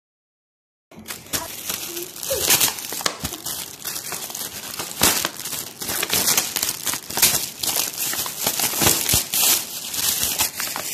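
Metallic foil gift wrap crinkling and tearing as hands pull it open, a dense run of rustling crackles that starts about a second in.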